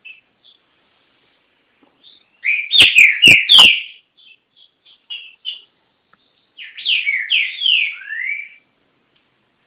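Green-winged saltator (trinca-ferro) singing two loud phrases of clear whistled notes, each note sliding downward, the first about two and a half seconds in and the second near the end, with short single notes in between. Three sharp clicks break into the first, louder phrase.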